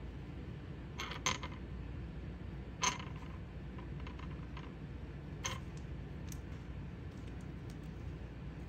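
A few short, light taps and clicks, the loudest about three seconds in, as a kitten bats a seashell around on a hard floor, over a steady low hum.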